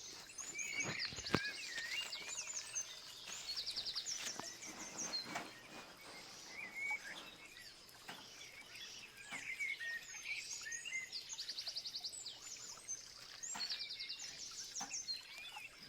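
Several birds singing and calling together: many short chirps that glide up and down, with quick trills of evenly spaced notes coming back every few seconds. A sharp click about a second in.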